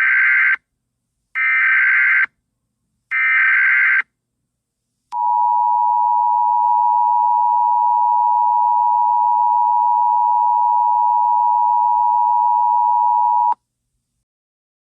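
Emergency Alert System tones: three short, buzzy SAME header data bursts about a second apart, then the steady two-tone EAS attention signal, held for about eight seconds before it cuts off suddenly.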